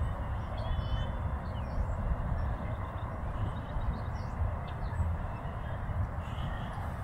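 Steady low outdoor rumble with a few faint bird chirps over it.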